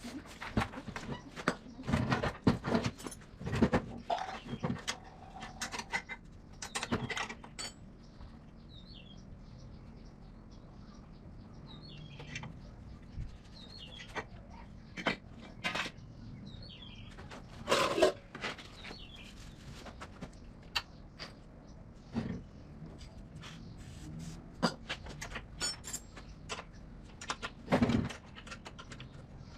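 Irregular metallic clinks and knocks of tools and engine parts being handled, coming in bunches with quieter gaps between. Faint bird chirps can be heard in the quieter middle stretch.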